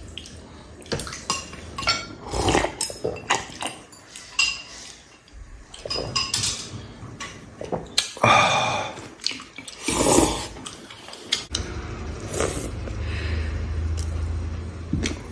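Chopsticks and a soup spoon clicking and clinking against ceramic bowls and a glass serving bowl, many sharp irregular clicks, with a few longer noisy stretches of eating in between.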